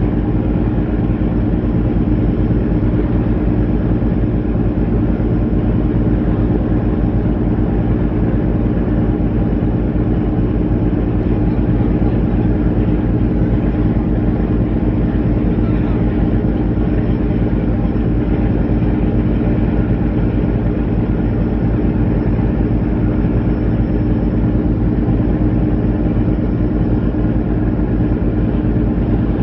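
Boat engine running steadily: a constant low drone with a fast, even throb that holds the same speed throughout.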